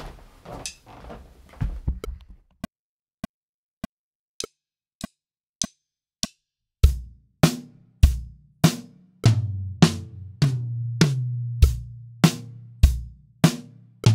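A few knocks and shuffling, then a metronome clicking alone at 100 bpm, and about seven seconds in a drum kit comes in on the clicks. It plays a quarter-note rock beat on bass drum, snare and hi-hat, with a quarter-note fill over floor tom, snare, mid tom and high tom that leaves the toms ringing.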